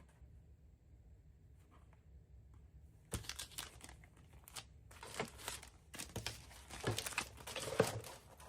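Packaging crinkling and rustling as it is handled, in several bursts starting about three seconds in, the loudest just before the end.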